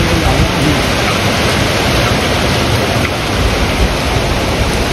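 Hurricane wind and rain: a loud, steady rush through the trees, with gusts buffeting the microphone in a rough low rumble.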